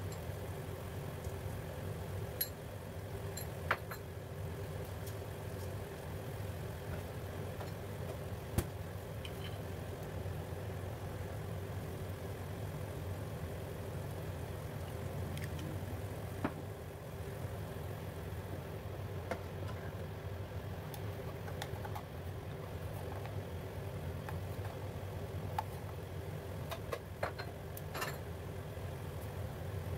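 A steady low hum with scattered faint pops and clicks, as a wok of tomato broth simmers.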